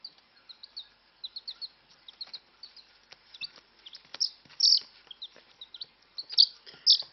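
Chicken chick peeping: a rapid string of short, high peeps, with a few louder ones about four seconds in and again near the end.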